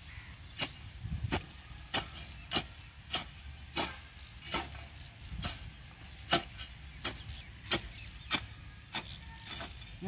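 A broad-bladed hand hoe (kassi) chopping into dry soil, grass and roots, scraping weeds off an earthen field ridge. The sharp chops come in a steady rhythm, about three every two seconds.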